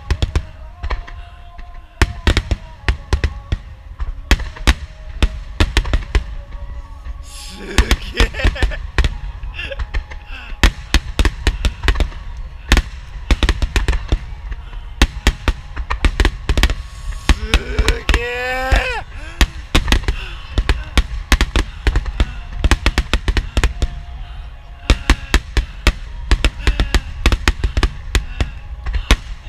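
Aerial fireworks shells bursting in rapid, overlapping succession: a dense barrage of sharp booms and crackles with a heavy low rumble that never lets up.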